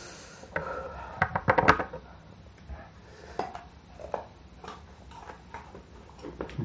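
Crisp crunching of raw guava pieces being bitten and chewed: a quick burst of sharp crunches about one and a half seconds in, then scattered lighter crunches.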